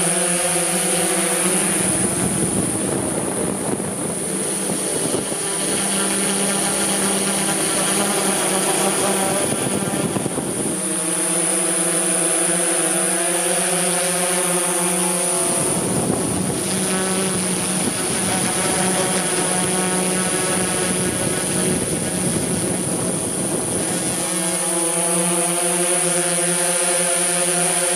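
DJI S1000 octocopter's eight electric motors and propellers running in flight, picked up by the camera it carries: a steady multi-toned hum with a high whine above it. A rushing noise swells over the hum twice, each time for several seconds.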